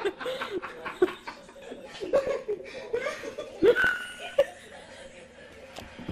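People laughing and chuckling in short bursts, dying down over the last couple of seconds.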